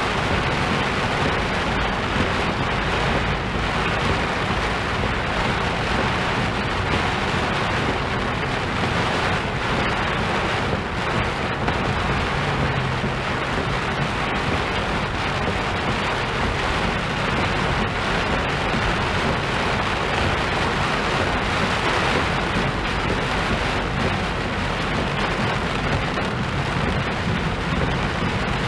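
Heavy rainstorm: a downpour falling on a moving car and the water-covered road, a loud, even, unbroken rush with a low rumble underneath.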